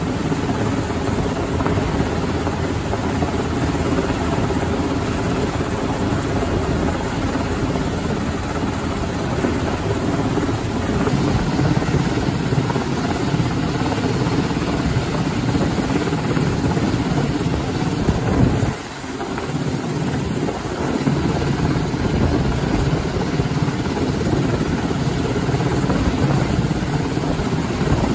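Coast Guard MH-60T Jayhawk helicopter hovering overhead during a hoist rescue: a steady, loud rotor and turbine noise that dips briefly about two-thirds of the way through.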